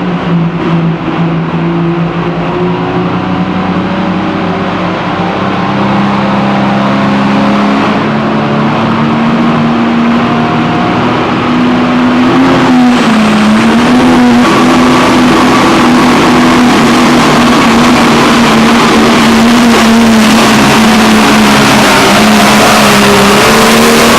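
Competition pulling tractor's engine running hard at high revs during a pull, its note held steady with a small dip in pitch about halfway through. It grows louder in two steps, the second about halfway in.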